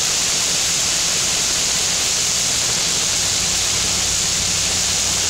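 Heavy rain hitting the roof and windshield of a moving car, heard from inside the cabin as a loud, steady hiss, with a low hum of engine and road underneath.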